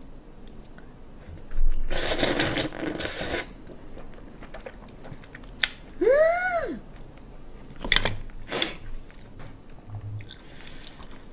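A raw oyster slurped off its half shell in one loud wet suck lasting about a second and a half, then mouth-noise chewing. A short hummed 'mm' rises and falls about six seconds in, followed by two quick slurping smacks.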